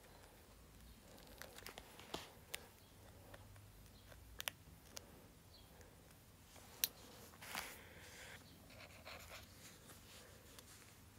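Faint, scattered sharp ticks and small scratches of a steel pin picking at the edge of an iPhone 7, with the phone being handled, over near-silent room tone.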